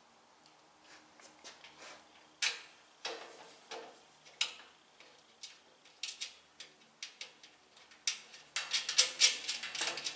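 Metal hardware being handled and fitted on a sheet-steel welding cart: scattered clicks and clinks of bolts, washers and nuts, with a quick run of rapid clicks near the end.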